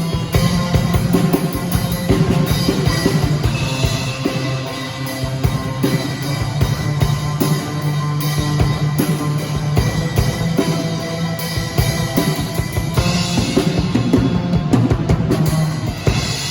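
A band rehearsing a worship song, the drum kit beating steadily and fast over held bass notes.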